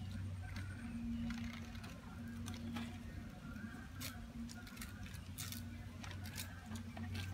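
Light rustles and taps of laminated paper picture cards being pressed onto a wall and shuffled, over a steady low hum.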